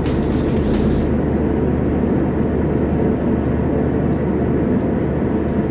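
Steady road and engine noise of a moving car, heard from inside the cabin, with a crackly hiss on top that stops about a second in.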